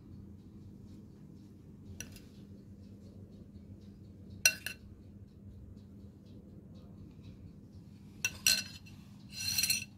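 A metal spoon clinking against a dish four times, the loudest about halfway in and two close together near the end, followed by a short scraping rub. A steady low hum runs underneath.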